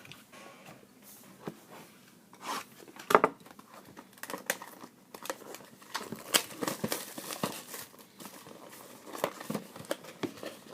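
Plastic wrapping on a box of trading cards crinkling and tearing as it is opened, a run of irregular crackles and snaps with the sharpest snap about three seconds in.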